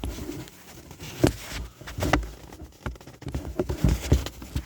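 Plastic glove-box trim and a plastic push screw being handled and fitted back into the car's dashboard: a string of sharp plastic clicks and knocks, about half a dozen, over rustling handling noise.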